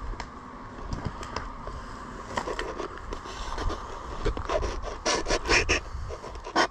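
Footsteps rustling and crackling through tall grass and loose wooden boards, a string of sharp scrapes and snaps that grows denser and louder near the end.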